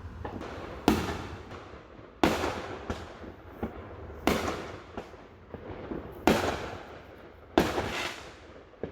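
Aerial fireworks going off, five loud bangs about every one and a half to two seconds, each trailing off in a fading echo.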